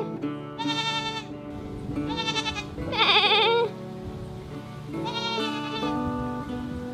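A goat bleating four times, each a wavering call of about a second, the third the loudest, over background music with steady held notes.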